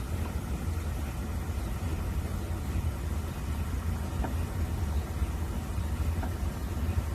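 MRI scanner running with a steady low rumble and a few faint, short higher tones.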